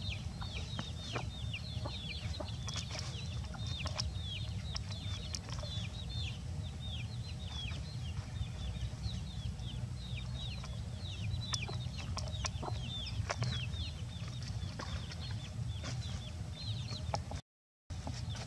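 Chicks peeping continuously: many short, high chirps that each fall in pitch, several a second and overlapping, over a low steady rumble, with a brief break near the end.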